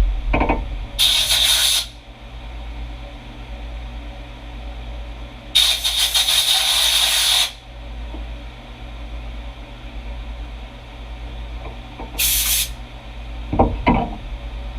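Compressed air hissing in three short blasts, the middle one about two seconds long, over the steady low hum of a CNC milling machine. A couple of short knocks near the end.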